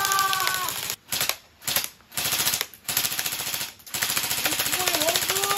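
Toy pellet gun firing on full auto: a fast, even run of shots, broken by several short pauses between about one and four seconds in.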